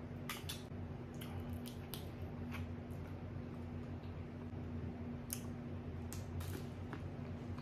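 Close-miked wet eating sounds: snow crab meat being sucked in and chewed, with sharp lip smacks and mouth clicks at irregular intervals. A steady low hum lies beneath.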